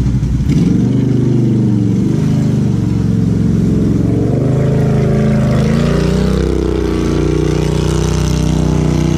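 ATV engine revving up and down under load as the quad crawls out of a creek and up a muddy bank, with water churning around the tyres.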